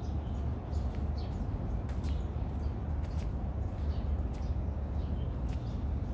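Outdoor ambience with small birds chirping now and then over a steady low rumble.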